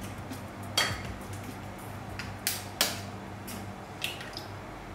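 Eggshell tapped with a metal utensil to crack it open over a glass bowl: several sharp, separate clicks.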